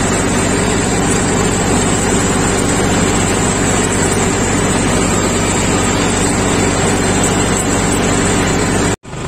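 John Deere tractor engine running steadily, heard from the driver's seat as the tractor is driven. The sound cuts off suddenly near the end.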